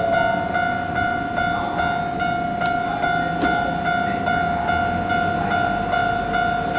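Railroad crossing warning bell ringing, a steady two-tone chime repeated evenly about twice a second.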